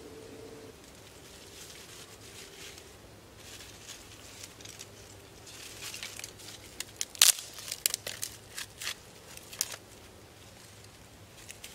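Dry twigs and brush rustling as they are pulled from a pile, then a quick run of sharp snaps in the second half as small dry sticks are broken by hand for kindling, one snap louder than the rest.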